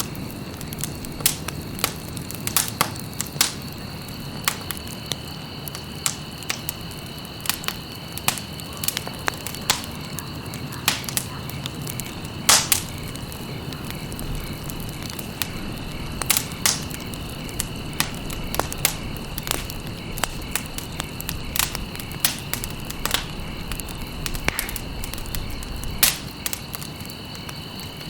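Wood fire in a fireplace crackling: irregular sharp pops over a low steady rush of burning, with a faint steady high whine behind it. The loudest pop comes about halfway through.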